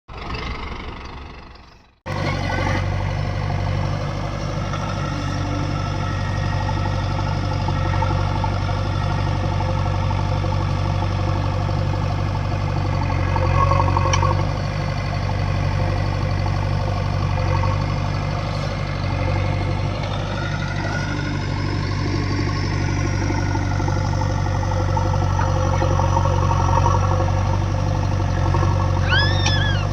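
JCB 3DX backhoe loader's diesel engine running steadily, picking up about two seconds in after a short fading sound. Its pitch rises and falls once about two-thirds of the way through, and a few short high squeaks come near the end.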